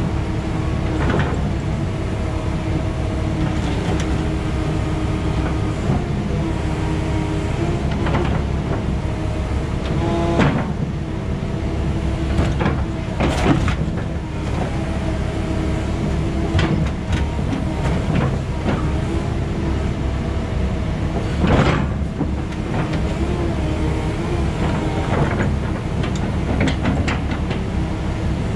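Excavator engine running steadily with its hydraulics whining as the landscape bucket smashes and crushes an old concrete septic tank: repeated sharp knocks and crunches of breaking concrete, the loudest about 21 seconds in.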